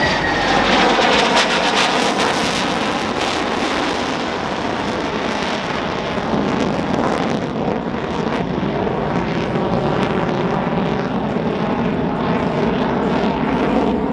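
Jet noise from an EA-18G Growler's twin General Electric F414 turbofans as the jet passes and climbs away: a loud, continuous rushing, with a falling whine in the first moments.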